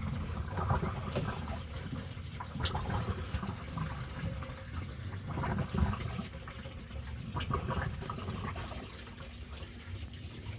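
Dirty wash water draining out of a twin-tub portable washing machine's drain hose into a shower, running and gurgling steadily, with a few light knocks.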